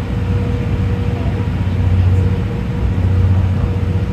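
Steady low hum of a JNR 12-series passenger coach (SuHaFu 12) rolling slowly, heard from inside the cabin, with a faint steady tone above it.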